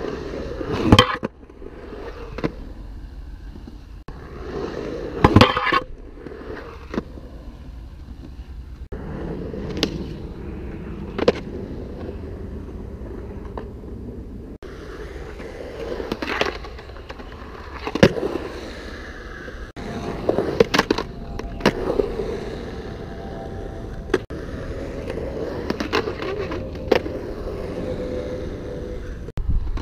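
Skateboard wheels rolling on concrete, broken by several sharp clacks from the board striking the ground and ramp edges.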